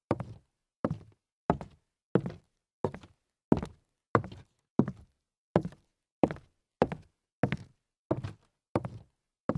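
Slow, evenly paced footsteps, about three steps every two seconds, each a dull thud.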